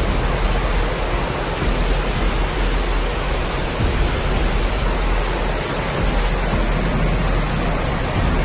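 Storm floodwater rushing down a street in a fast, churning torrent: a steady, even rushing noise.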